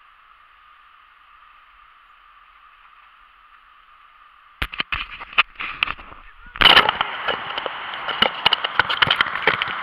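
A faint steady hiss, then from about halfway sharp pops followed by a loud, dense crackling and rustling: handling noise from fingers and movement against the camera's microphone.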